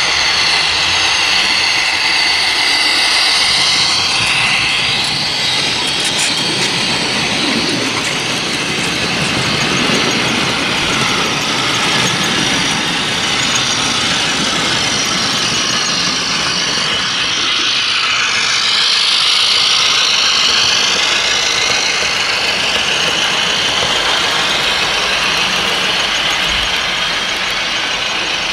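OO gauge model diesel train with DCC sound running steadily past: diesel engine sound from the model's sound decoder, together with the running noise of a long rake of model hopper wagons on the track.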